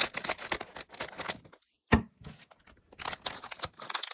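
A plastic LEGO minifigure blind-bag packet being crinkled and torn open by hand, in quick crackling bursts with one sharp crack about halfway through.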